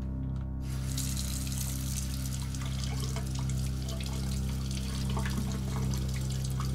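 Kitchen tap turned on about a second in, water running steadily into a stainless steel sink and splashing over hands being rinsed. Under it a low steady drone from the score runs throughout.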